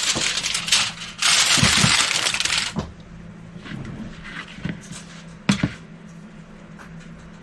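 Aluminium foil crinkling loudly for about two and a half seconds, as a resting roast is covered. This is followed by a few light clicks and one sharp knock of kitchenware about five and a half seconds in.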